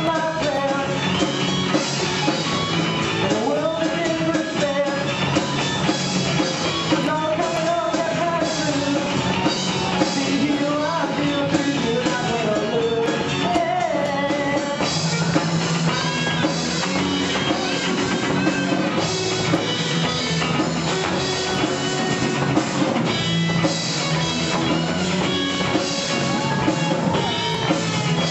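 A rock and roll band playing live, a sung melody over guitar and drums.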